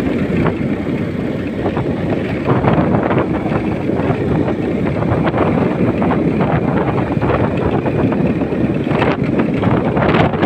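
Steady wind rush over the microphone of a moving motorcycle, mixed with the motorcycle's engine running and its tyres on a dirt road.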